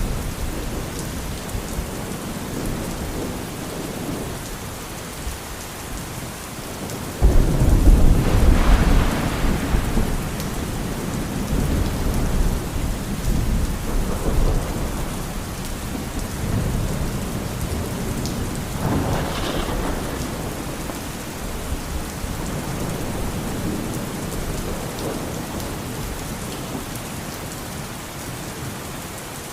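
Steady rain with thunder: a sudden loud thunderclap about seven seconds in rumbles on for several seconds, and softer rolls of thunder follow later.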